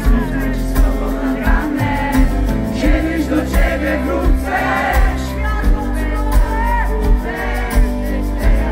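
Live pop-rock band playing with a female singer singing the melody, over a steady drum beat and bass, recorded from among the audience.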